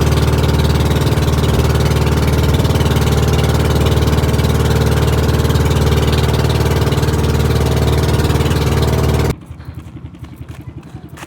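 A motor engine running steadily and loudly, then cutting off abruptly about nine seconds in, leaving a much quieter rhythmic sound.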